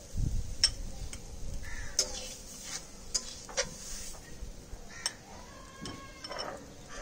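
Metal spoon or spatula clinking and scraping against a metal cooking pot as the cooked greens are handled, a string of irregular sharp clinks.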